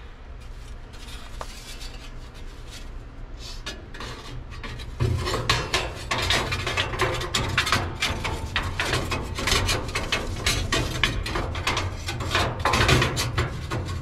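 Rapid, irregular scraping and rasping of a hand and tool against the sheet metal of a gas furnace's burner and heat-exchanger openings, starting about five seconds in, over a steady low hum.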